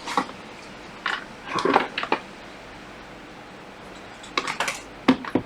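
Scattered light clicks and taps of small objects being handled on a bench, in a cluster during the first two seconds and again about four and a half seconds in.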